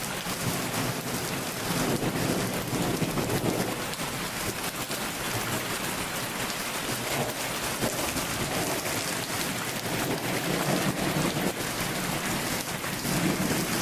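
Heavy rain falling steadily, with a low rumble swelling and fading a few times.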